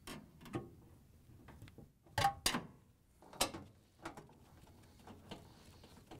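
A dryer's lint filter duct and surrounding panel parts being handled and fitted into place: a series of separate light clicks and knocks, the loudest two close together about two seconds in.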